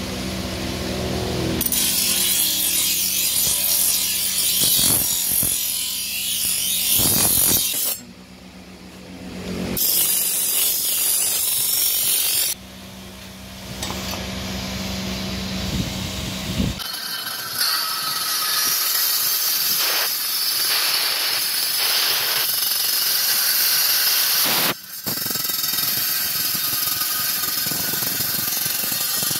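Electric grinding wheel spinning with a steel sickle blade pressed against it: a harsh, high grinding hiss that comes in spells over the motor's steady hum. About halfway through, the hum drops away and a belt-driven grinding wheel grinds the blade almost without a break.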